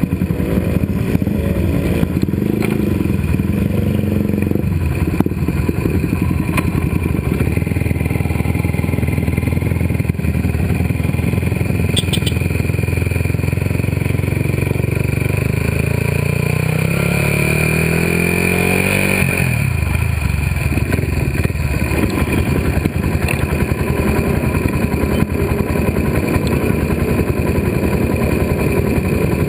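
Suzuki Raider 150 motorcycle engine, a single-cylinder four-stroke, heard from a camera mounted on the bike as it pulls away and rides along. The engine note climbs about two-thirds of the way through, then drops suddenly at a gear change.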